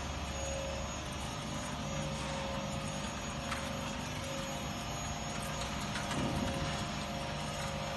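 Vertical form-fill-seal packing machinery running: a steady mechanical hum with a held tone, faint clicks and a small swell about six seconds in.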